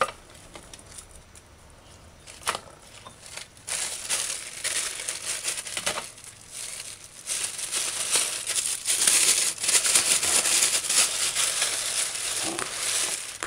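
Thin clear plastic bag crinkling and rustling as it is handled and opened by hand: a few light crackles at first, then dense, continuous crinkling from about four seconds in.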